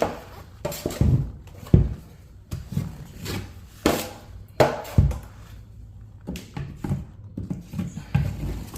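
A drywall knife spreading joint compound: irregular scrapes, clicks and knocks of the blade on the wall and the mud.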